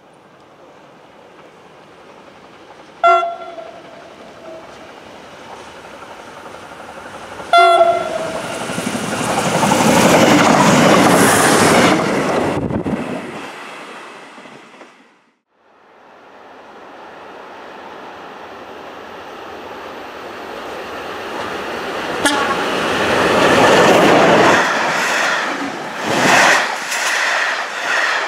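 Passenger train approaching along electrified track, sounding two short horn blasts, then going by at speed without stopping and fading away. After a short break a train approaches again, gives a brief horn toot and passes close by, its wheels clattering over the rail joints.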